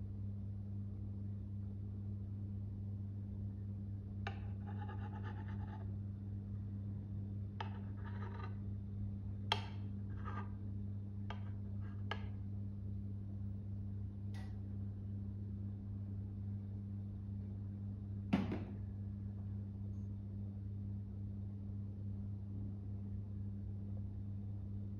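Light taps and clinks of a steel milk pitcher and a ceramic cup being handled during a latte art pour, over a steady low hum; the sharpest knock comes about 18 seconds in.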